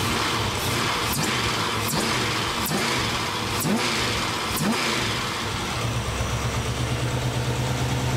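Carburetted 350 V8 in an HG Holden blipped five times, each rev rising quickly and dropping straight back, then settling to a steady idle that is not very lumpy. The ignition runs locked at full advance, with no vacuum or mechanical advance.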